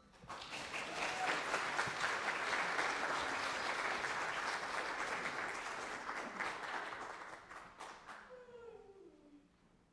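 Audience applauding, starting right after the music ends, building quickly and then dying away near the end. A voice is heard briefly as the applause fades.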